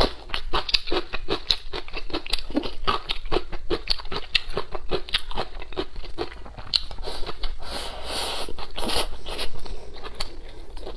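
Close-miked eating: a person biting and chewing braised pork rib, with wet smacking and many irregular small clicks, and a denser hissing stretch about eight seconds in.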